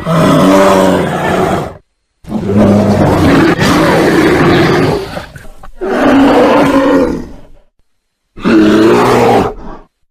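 Bear roars and growls: about four long, rough, low-pitched calls, each cut off into dead silence before the next one starts.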